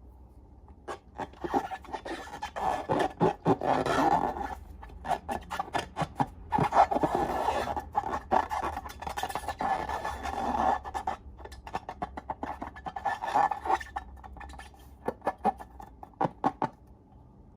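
Slime being squished and worked by hand: wet, sticky squelching with many sharp clicks and pops. It starts about a second in and stops near the end.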